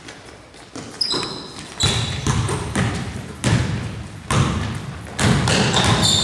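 Basketball bouncing on a hardwood gym floor, with sneakers squeaking and footfalls as players run down the court; the bounces come about once a second and grow louder in the second half.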